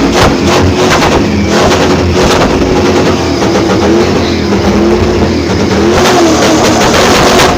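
Drift car's engine revving hard, its pitch wavering up and down as it is held at high revs.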